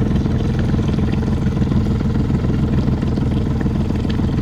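Engine of a small Mako boat running steadily at low speed, a continuous low hum with no change in pitch.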